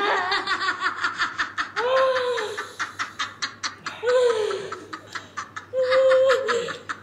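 A young woman crying out and laughing at the burn of ghost pepper instant noodles: rapid gasping, sobbing laughter broken by three drawn-out wails about two seconds apart.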